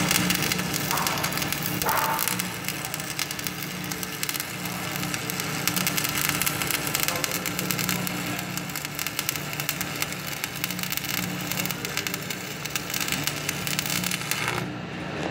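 Stick-welding arc crackling and sizzling steadily as a bead is run with the electrode at about 135 amps, over a steady low hum. The arc breaks off suddenly near the end.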